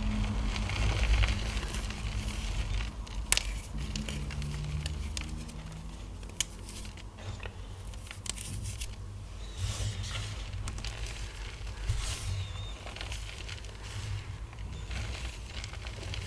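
Gym chalk being crushed and crumbled by hand: irregular crunchy crackles over a soft rustle of powder, with one sharper crack about three seconds in.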